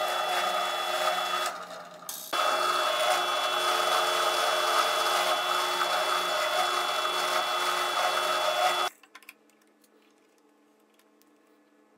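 Drill press running an end mill that shaves high-density plastic, a steady motor whine under a rough cutting hiss. It dips briefly about two seconds in and cuts off abruptly about nine seconds in, leaving only a few faint ticks.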